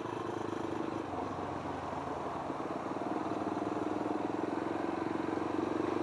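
Motorcycle engine running through an Akrapovic aftermarket muffler while riding, a steady even putter that grows slightly louder toward the end.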